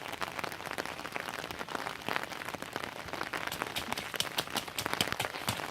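Rain pattering steadily while a child stomps and splashes through puddles, making irregular wet slaps and taps, a few of them louder about two seconds in and again near the end.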